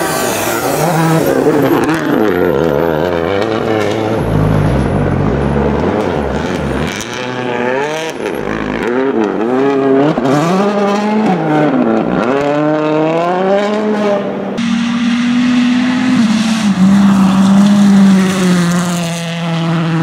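Hyundai i20 WRC rally car's turbocharged 1.6-litre four-cylinder engine at full throttle. The revs climb and drop again and again with quick gear changes as the car passes, and a steadier, held engine note follows from about 15 seconds in.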